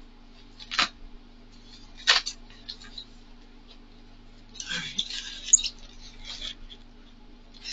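A Styrofoam packing box being handled and pried open: short scraping rubs about a second and two seconds in, then a longer spell of rubbing with a sharp click around the middle, over a steady low hum.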